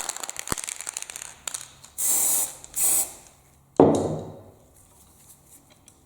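Aerosol spray paint can spraying in two short hisses about two seconds in, after some clicking and rustling. A little before four seconds in comes the loudest sound, a single clunk with a brief ring.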